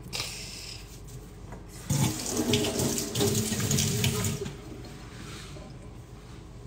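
Water running from a kitchen tap into a sink for about two and a half seconds, starting about two seconds in, then turned off.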